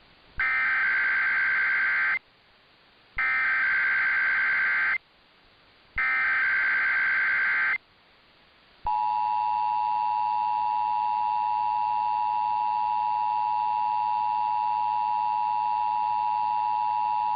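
Emergency Alert System tones heard over AM radio, marking a Required Monthly Test. First come three identical bursts of SAME header data, each about two seconds long with about a second's gap between them. From about 9 seconds in, the steady two-tone attention signal (853 and 960 Hz) holds for about eight seconds and cuts off abruptly.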